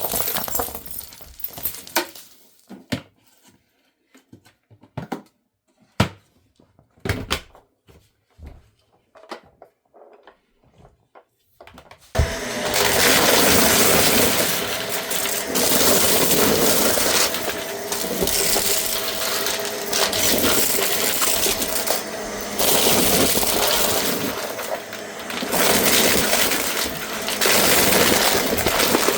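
Scattered clicks and knocks, then about twelve seconds in a Shark vacuum cleaner switches on and runs with a loud steady whir and a faint whine. Its level swells and dips as it works.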